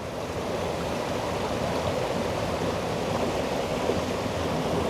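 Small creek waterfalls and cascades rushing steadily over rocks, a constant dense water noise that grows slightly louder in the first second.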